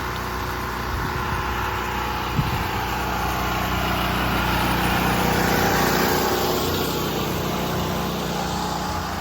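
A small engine running steadily, with a wash of noise that swells louder in the middle and eases off again.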